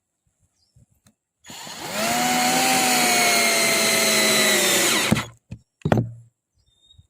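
TOTAL 12-volt cordless drill motor spinning up and running at speed with a steady whine for about three and a half seconds, then cutting off abruptly, followed by two sharp clicks.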